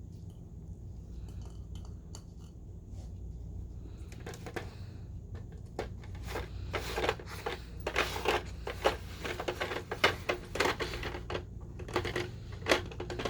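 A dog working at a puzzle box: a run of quick clicks and clatters from the box and its lid, sparse at first and thick through the second half. A steady low hum sits underneath.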